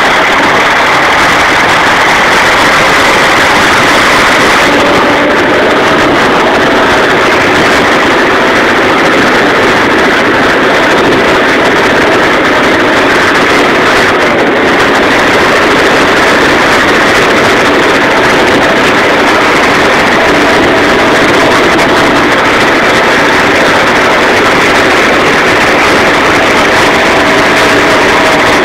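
Massey Ferguson 35 tractor engine running steadily and loud while pulling a sledge through snow.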